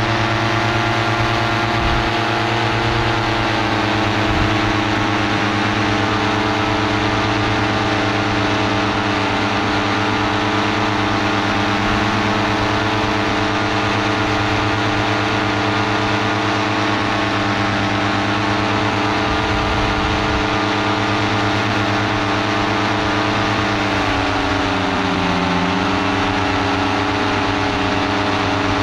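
Paramotor engine and propeller running steadily at cruise power in flight, with the airflow rushing past. About twenty-four seconds in, the engine's pitch sags briefly and comes back up, as the throttle is eased and reopened.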